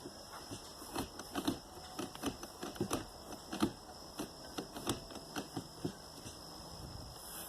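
Irregular light clicks and knocks, several a second, from hands working the newly installed Ford Focus RS shifter and the console parts around it in a 2017 Focus ST.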